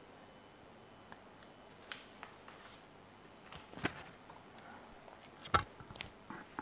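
Quiet background hiss broken by a handful of short, faint clicks and knocks, the three clearest about two, four and five and a half seconds in.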